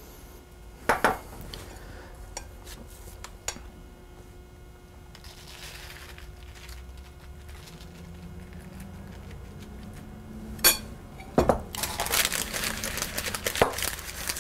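Kitchen handling sounds: a few light clinks and taps of a spoon and pastry brush against the baking pan, then, near the end, a louder clatter and rustle as the parchment-lined baking pan is picked up and moved.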